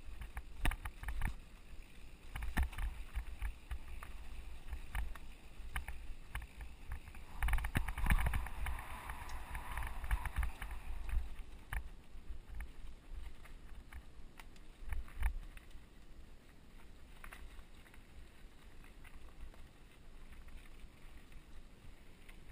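Mountain bike riding fast down a dirt singletrack: low wind rumble on the microphone, tyre noise on dirt and many short knocks and rattles from the bike over roots and rocks. A louder, rougher hiss of tyres on loose ground from about seven to eleven seconds in.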